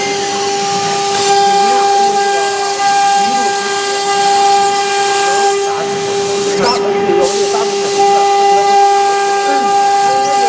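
CNC router's 3 kW water-cooled spindle running at a steady high-pitched whine, with the hiss of the bit cutting MDF. The high hiss drops out briefly about seven seconds in.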